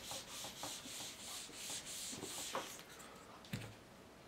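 Felt eraser wiping dry-erase marker off a whiteboard in quick repeated strokes, about three a second, stopping about three seconds in. A single soft knock follows.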